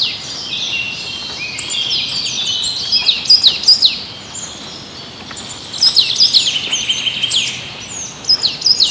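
Small birds chirping: a dense run of quick, high falling notes over a steady background hiss. The chirping is busiest about three seconds in and again from about six seconds on.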